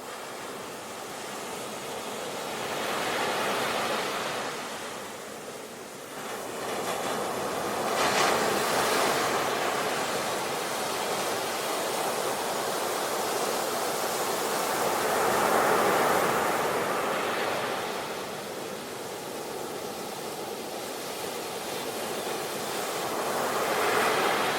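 Sea waves breaking and washing, a steady rushing that swells and ebbs; four surges come several seconds apart, the sharpest about a third of the way in.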